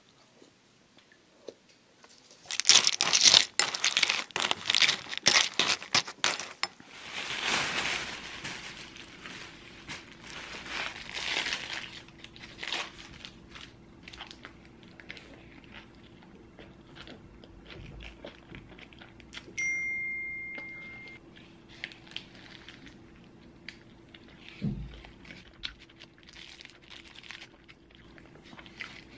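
Paper sandwich wrapper being crinkled and torn open. The crinkling is loudest in a burst during the first quarter, then eases to softer rustling and scattered crackles. A short steady beep sounds about two-thirds through.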